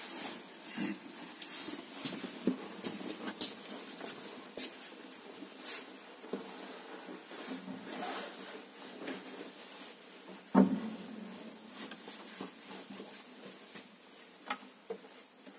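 Footsteps, clothing rustle and small wooden knocks and clicks as a person walks up and settles onto a wooden organ bench, with one louder thump about ten seconds in.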